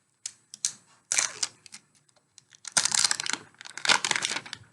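Handling noises: a few separate clicks, then two short stretches of rustling clatter. No siren sounds.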